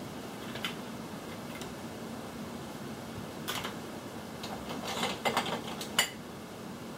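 Light clicks and clatter of makeup brushes and containers being handled on a counter: a few scattered clicks, a quick cluster about five seconds in, and one sharp click near the end, over a steady background hiss.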